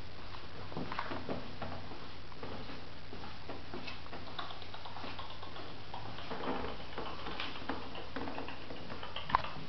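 Pomeranian puppy's claws clicking and pattering on a tiled floor as it scampers about, with one sharper click near the end.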